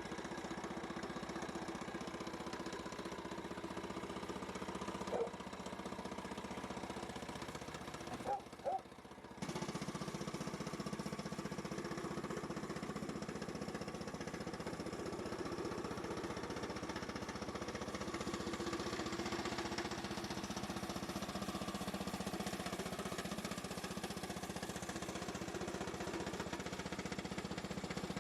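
Frontier portable sawmill's engine running steadily. It drops out briefly about nine seconds in, then comes back slightly louder and carries on.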